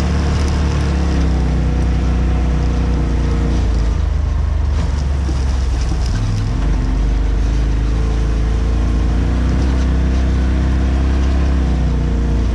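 Polaris RZR side-by-side engine running under way on a dirt trail, its pitch shifting as the throttle and speed change partway through.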